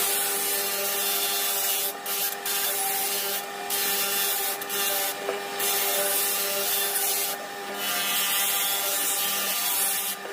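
Power tool abrading wood: a steady motor hum under a continuous sanding hiss, which lifts off briefly about six times as the tool comes away from the work.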